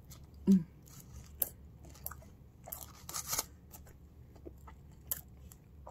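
A person biting into and chewing a hamburger close to the microphone: scattered wet mouth clicks and smacks, busiest about three seconds in, with a brief hummed sound about half a second in.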